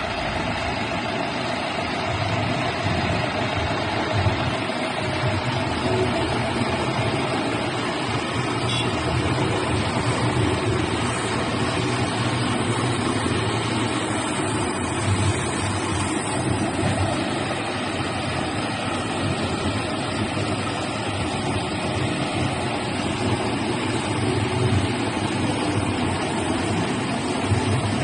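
Engine of a self-loading concrete mixer running steadily, with a continuous low drone.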